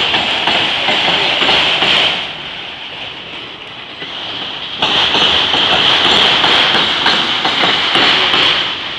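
CSX autorack freight cars rolling past, their steel wheels on the rails making a loud, high rushing noise. The noise eases for a few seconds partway through, then comes back at full strength.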